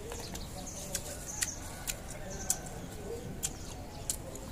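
Scattered sharp clicks, about six in all and irregularly spaced, as green oleaster fruit is eaten with wooden chopsticks from a plastic bowl. Faint bird chirps sound in the background.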